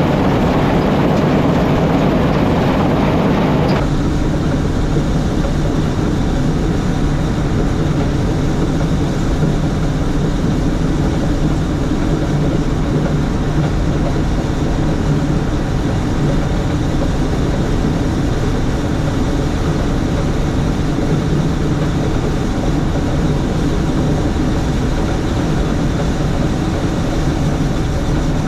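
Claas combine harvester working, a steady loud mechanical drone. About four seconds in the sound changes suddenly from a brighter rushing noise to a duller, lower drone.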